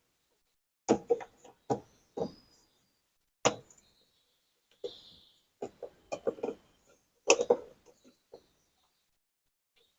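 Irregular sharp knocks and clacks of washing-machine mechanism parts being handled and set against each other, some in quick clusters, with a brief scrape about five seconds in.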